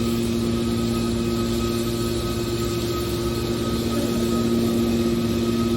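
Hydraulic car baler's power unit running steadily, a constant hum with a faint higher whine over it.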